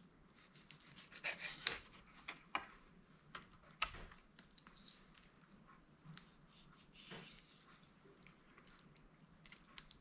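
Faint, scattered clicks and taps of a knife and hands working raw chicken leg quarters, with a few sharper ticks.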